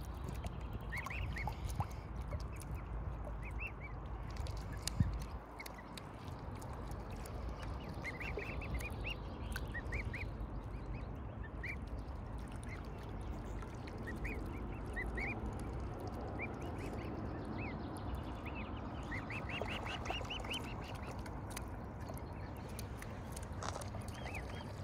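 Mute swan cygnets peeping: short high calls, some single and some in quick runs of several, over a low steady rumble. A single sharp knock comes about five seconds in.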